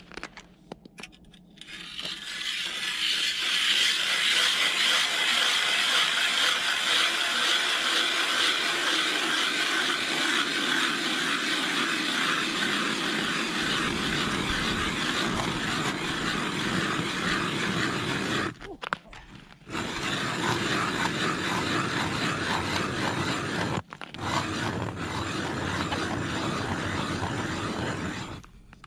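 Hand-cranked ice auger drilling through lake ice: a steady scraping grind of the blades, starting about two seconds in and growing lower and duller in the second half. It breaks off for about a second two-thirds of the way through, again briefly soon after, and near the end.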